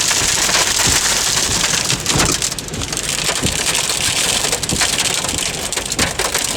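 Torrential rain mixed with hail pounding on a car, a dense steady downpour with many sharp hits, in the wind of a passing tornado.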